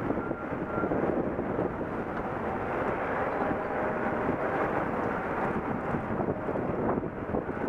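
High wind rushing and buffeting against the microphone in a steady, gusting roar.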